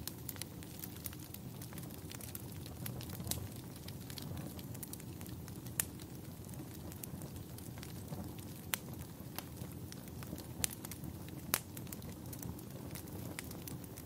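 Forest fire burning: a low steady rumble with scattered sharp crackles and pops, a few seconds apart.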